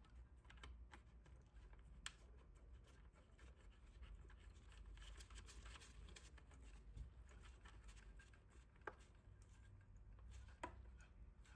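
Faint hand-work sounds of a screw being driven into the vacuum's switch housing: a few light clicks and soft scraping over a low steady hum.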